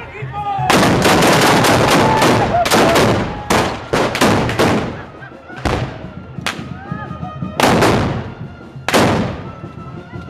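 Gunshots in a rapid, ragged volley for the first few seconds, then single shots about a second apart, each one sharp and echoing.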